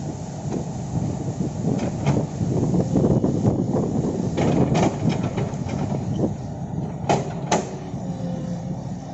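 Kobelco hydraulic excavator working: its diesel engine runs under load, and several sharp knocks and clanks break through, the sharpest two close together about seven seconds in.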